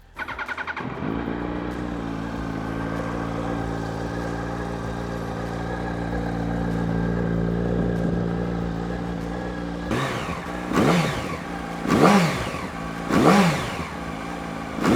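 2007 Yamaha R1's inline-four engine on its stock exhaust, started up: it catches about a second in and idles steadily. It is then blipped in four quick revs over the last five seconds, each rising and falling back to idle.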